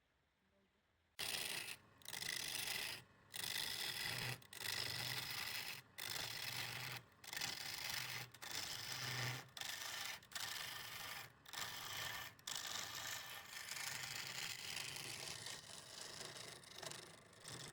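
Scraping, rubbing noise of wood being worked on a lathe, in a run of short stretches about a second long, each cut off abruptly, with a faint low hum under some of them.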